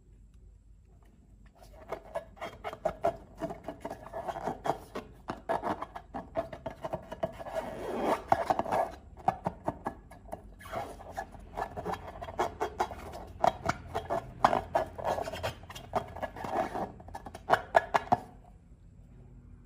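Slime being worked by hand, a dense run of small sticky clicks and crackles that starts about a second and a half in, pauses briefly midway and stops shortly before the end.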